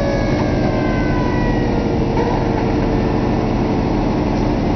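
1966 Ford Thunderbird's V8 running at a fast idle while the power convertible top's pump works to lower the top, its whine slowly falling in pitch under load. The pump runs slow.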